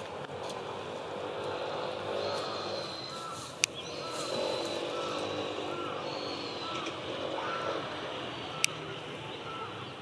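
Steady outdoor background hum with faint distant voices and short repeated bird chirps, broken by two sharp clicks, one about three and a half seconds in and one near the end.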